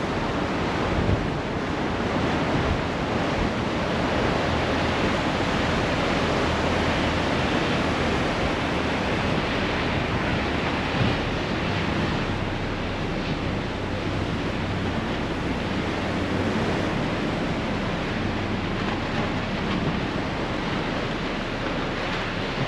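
Ferry under way: a steady rush of water along the hull and wind buffeting the microphone, over a low, even engine hum.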